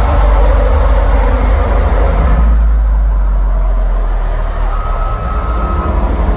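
Deep, steady bass rumble from a stadium sound system during a concert's video interlude. A noisy arena haze above it thins out about halfway through.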